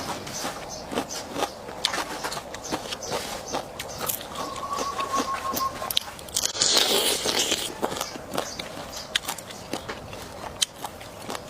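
Close-up eating sounds: biting and chewing with many sharp crackling and scraping clicks. A brief steady tone sounds about four seconds in, and a short hissing rush, the loudest moment, comes a little before seven seconds.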